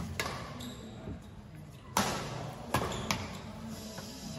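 Badminton rackets striking a shuttlecock during a rally: a few sharp smacks, the loudest about two seconds in, with two more close together near three seconds, echoing in a large sports hall.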